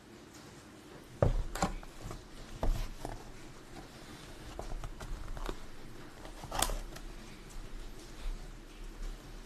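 Handling noise: scattered light clicks and knocks of objects being moved about, the loudest about a second in and again past the middle.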